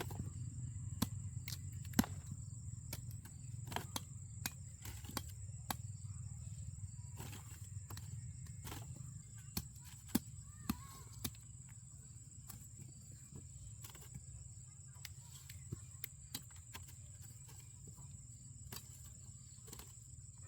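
Insects chirring with a steady high buzz, with scattered sharp clicks and snaps over a low hum.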